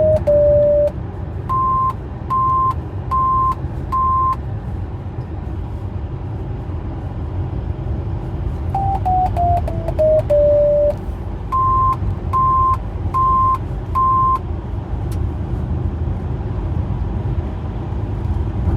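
Electronic alarm tones from a VW T6.1 van, a sound the owner cannot place. A quick falling run of six or seven short tones ends in one longer low tone, followed by four evenly spaced higher beeps. The pattern repeats about every ten seconds over a steady low rumble.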